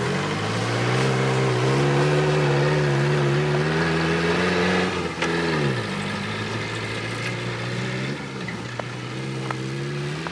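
Suzuki Samurai 4x4's engine revving hard for about five seconds as it drives through snow, then the revs drop sharply and it runs lower before picking up again near the end.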